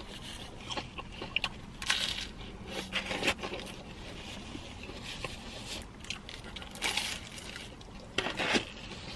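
Scattered rustling, scraping and clicking from pizza and its packaging being handled, in bursts a few seconds apart.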